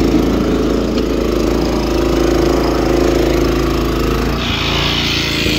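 Petrol engine of a walk-behind rotavator running steadily as its tines churn through stony soil. About four seconds in, a steady higher hiss joins the engine note.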